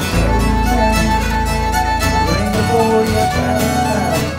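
Live contra-dance music: a Swedish nyckelharpa bowing the tune over a baritone guitar's steady strummed accompaniment.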